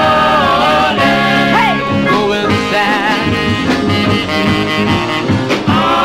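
A doo-wop song playing from a 45 rpm single: voices singing over a small band, with a long held harmony that ends about a second in.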